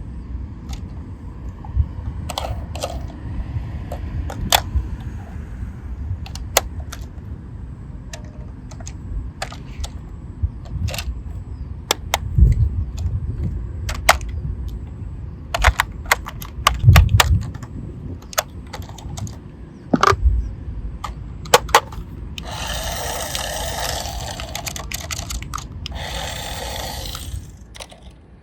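Toy vehicles being handled and rolled: a low rolling rumble with many scattered plastic clicks and clacks, and a rasping noise lasting about five seconds near the end.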